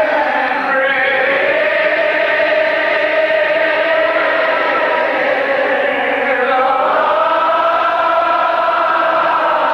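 Church gospel choir singing in full voice, holding long drawn-out notes, with the notes moving to a new pitch about six and a half seconds in.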